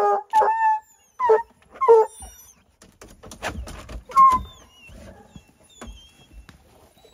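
Hunting hound barking: four quick, loud barks in the first two seconds, then another about four seconds in.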